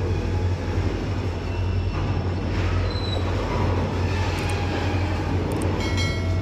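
Goods train of tank wagons rolling past close by: a steady low rumble of wagon wheels on the rails.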